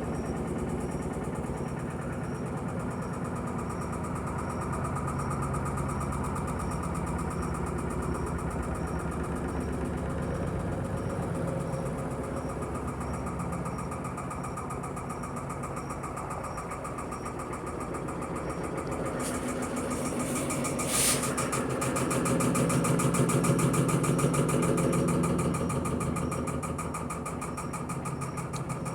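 Electrolux Perfect Wash 16 kg top-loading washing machine on its spin cycle, its drum spinning and the machine shaking with a loud, steady rumble. The rumble swells louder for a few seconds past the middle, with a brief hiss just before the swell.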